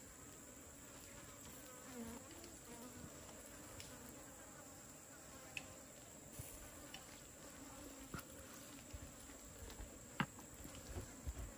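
Insects buzzing steadily, with a few faint clicks and one sharper knock about ten seconds in.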